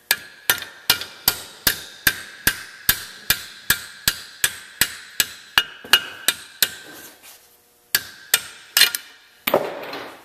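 Hammer striking a 15/16-inch impact socket to drive the old bearing out of a John Deere 318 mower-deck spindle hub held in a vise. The blows come steadily, about two and a half a second, with a metallic ring. After a short pause come a few more blows, then a clatter near the end as the bearing pushes through and the socket drops free.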